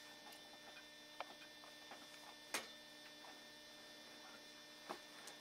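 Near silence: a steady electrical hum with a few faint, scattered clicks.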